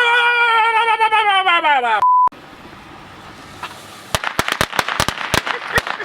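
A loud, drawn-out shout, cut off by a short censor bleep. About four seconds in, a string of firecrackers starts cracking rapidly, about a dozen sharp cracks in two seconds.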